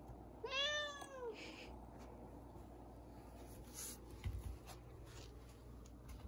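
Domestic cat giving a single meow about half a second in, rising then falling in pitch, followed by faint rustling and a couple of soft knocks.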